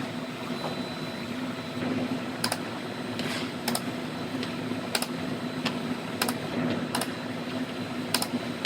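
Sharp, light clicks at an uneven pace of about one a second, over a steady low hum.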